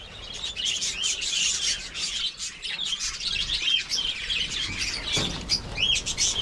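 A flock of caged budgerigars chirping and chattering, many quick high calls overlapping without pause.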